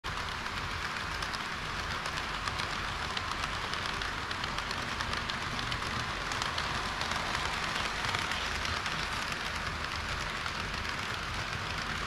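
HO-scale model trains running on plastic-roadbed sectional track: a steady rolling rattle of small metal wheels, thick with rapid light clicks over the rail joints, a little louder around the middle as a KiHa 40 railcar model passes close.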